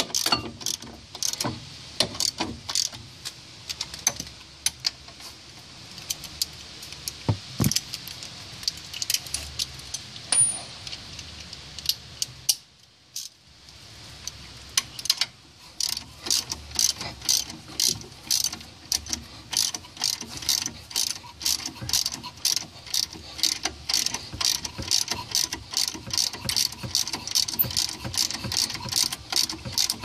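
Socket ratchet clicking as a 15 mm caliper bracket bolt is turned in. The clicks come in runs, pause briefly about thirteen seconds in, then become a quick, steady clicking of about four clicks a second.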